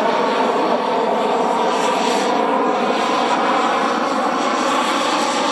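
Turbine engine of a radio-controlled F-2A scale model jet running in flight: a loud, steady jet rush with a whine layered over it.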